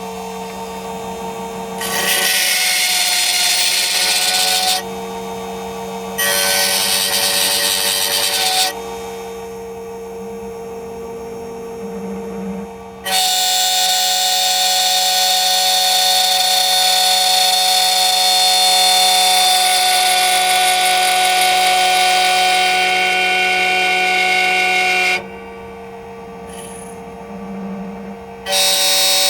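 Computerized key-cutting machine's spindle motor running with a steady whine, its 2 mm cutter milling a key blank in loud stretches: about two to five seconds in, again around six to nine seconds, a long run from about thirteen to twenty-five seconds, and again near the end, with only the motor whine between.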